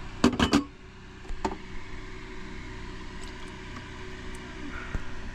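A few sharp clicks and knocks in quick succession at the start and one more about a second and a half in, as the parts of a diesel fuel filter are handled, over a steady low mechanical hum.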